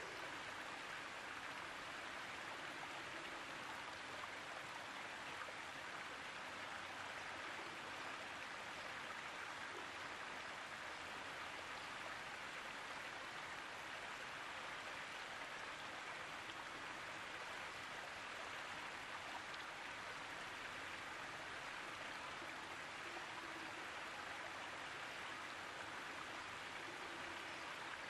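Steady, even rush of flowing water, with no single events standing out.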